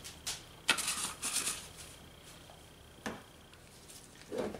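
A plastic seasoning shaker being handled and set down on a wooden table: a quick cluster of short rattles and knocks about a second in, then a single soft click about three seconds in.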